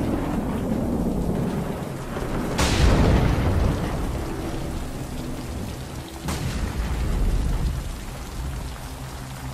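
Heavy rain falling steadily, with two thunderclaps, one about two and a half seconds in and another about six seconds in, each a sudden crack that trails off into a low rumble.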